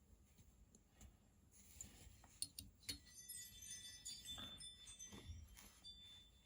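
Faint clicks and light metallic clinks with a brief high ringing: small metal parts of a disassembled folding knife being handled and set down.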